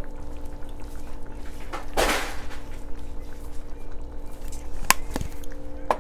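Freeze-dried cilantro being added from a small jar to a cast-iron skillet: a short rustling scrape about two seconds in, then two sharp clicks of the jar and measuring spoon near the end, over a steady hum.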